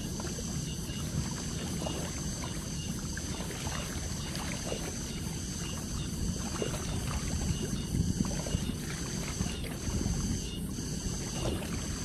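Small river waves lapping and splashing against a rocky bank, a steady wash of water with many small splashes.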